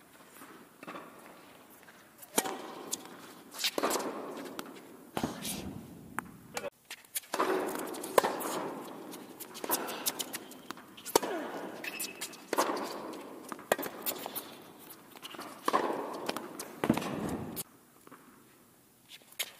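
Tennis rally on an indoor hard court: racket strikes and ball bounces alternate about every second and a half, each crack echoing in the large hall.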